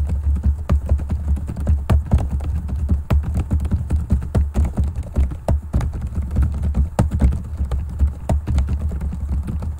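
Rapid typing on a computer keyboard, a fast stream of random keystrokes, over a steady low hum.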